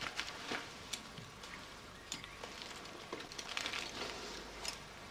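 Faint crackling rustle of paper surgical drapes being handled, with a few light clicks scattered through, as from instruments being picked up and set down.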